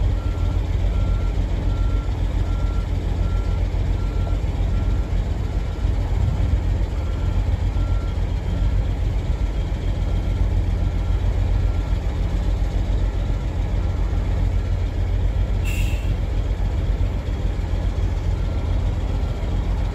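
Heavy tow truck's diesel engine running under load while its reversing alarm beeps steadily, about twice a second, as it backs up.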